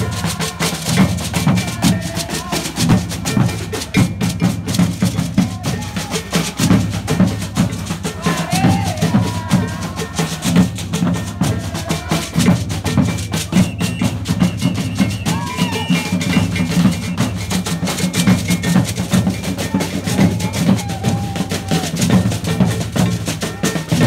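Live street percussion group playing a driving carnival rhythm on drums: deep drum strokes under fast, sharp, clicking hits from stick and hand drums, with voices over it at times.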